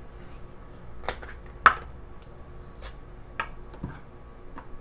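Small plastic clicks and taps as a plastic glue bottle's caps are twisted off and set down on a wooden workbench, with metal tweezers handled alongside. There are several separate clicks; the sharpest comes a little under two seconds in.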